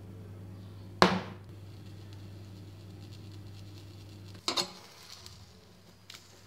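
Metal cooking utensils knocking against the gas stove's grate while a brinjal is turned over the flame: one sharp clank with a short ring about a second in, then a quick double clatter about four and a half seconds in and a small click near the end. A steady low hum runs underneath until the second clatter.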